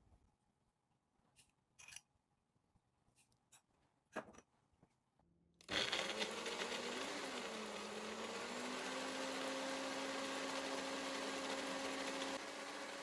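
Personal bullet-style blender's motor starting abruptly about halfway in and running steadily as it purées fresh goldenberries, its pitch dipping briefly just after start-up and then holding steady. A few faint clicks come before it starts.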